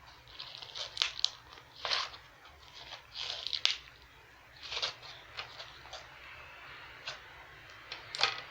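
Clear glitter slime being mixed and kneaded by hand, giving irregular crackly squelches and pops, some short and some drawn out, with brief gaps between.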